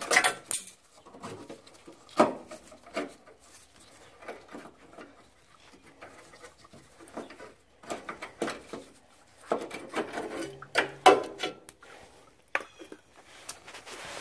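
Hands working an old fuel filter free of its fuel line clamps and fittings: scattered clicks, scrapes and rubbing, with the sharpest knocks right at the start, about two seconds in and around ten seconds in.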